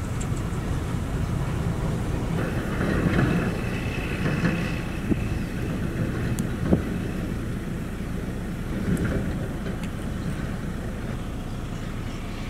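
Shacman dump truck's diesel engine running steadily with its bed raised, with a stretch of rattling clatter a few seconds in and a single sharp knock near the middle.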